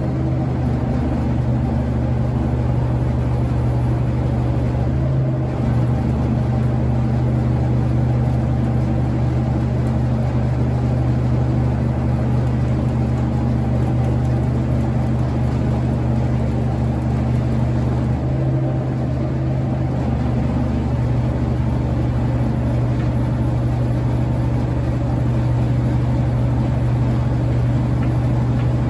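M816 military wrecker's diesel engine running steadily, powering the hydraulic boom during a heavy engine lift, with a brief change in its note about eighteen seconds in.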